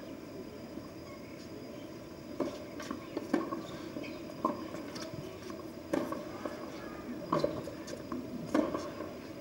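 Tennis rally on a hard court: sharp pops of racket strings striking the ball, with the ball's bounces on the court between them, starting about two seconds in and coming every second or so. A low crowd murmur sits underneath.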